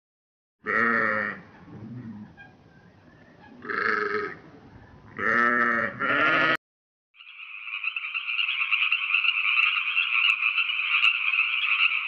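Bleating from a goat or sheep: four calls in roughly the first six and a half seconds. After a short gap, a steady, dense chorus of high trilling sound takes over, growing louder for about five seconds.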